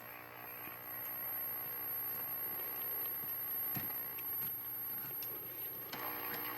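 1957 Ward's Airline tube TV set humming steadily through its speaker with the program sound gone, along with a steady very high-pitched whine; the hum grows stronger near the end. The owner takes the lost sound for a warm-up problem in the set.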